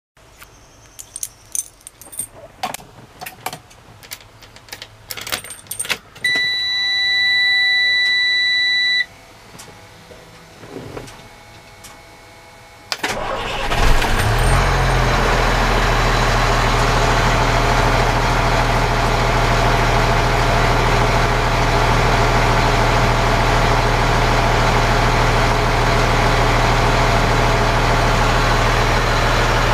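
Keys jangling and clicking, then a dash warning buzzer sounds steadily for about three seconds as the ignition is switched on. About 13 seconds in, the 2002 Freightliner FL80's diesel engine cranks briefly, starts, and settles into a steady idle.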